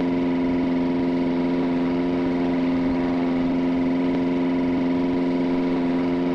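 Electric ceiling fan motor running with a steady, even hum.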